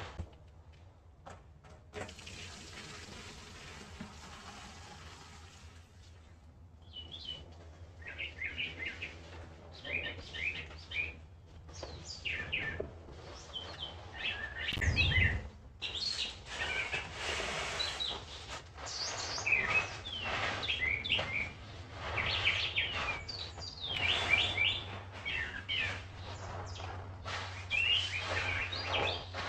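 Running water hisses steadily at first. Then, about a quarter of the way in, a dense chorus of many wild birds chirping and calling takes over and continues, with a dull thump about halfway through.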